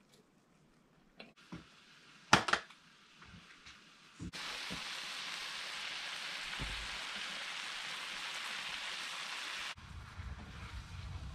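A few knocks and clatters of cookware, the loudest about two seconds in. Then a steady sizzle of tomatoes and sliced jalapeños cooking in a hot pan, which cuts off suddenly near the end.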